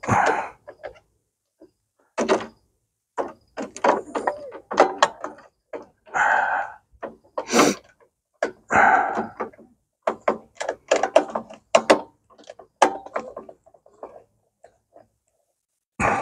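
Socket ratchet wrench with a 10 mm socket tightening the mounting nuts on a snowblower's newly fitted carburetor. It makes irregular runs of quick clicks with knocks and scrapes of metal on metal.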